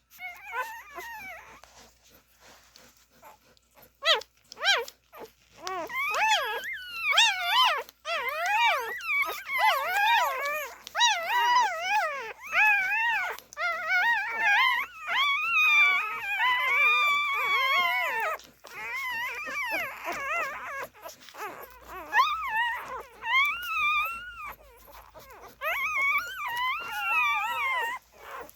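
Siberian husky puppies whimpering and squealing at the teat, several high, wavering cries overlapping almost without a break from about four seconds in.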